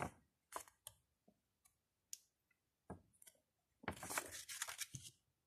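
Paper inserts from a CD case being handled: a few soft clicks and taps, then about a second of paper rustling from about four seconds in.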